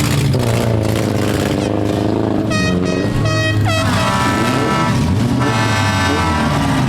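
Four-cylinder demolition derby car engines revving up and down. Over them come three short horn toots about two and a half seconds in, then one long horn blast lasting about two and a half seconds.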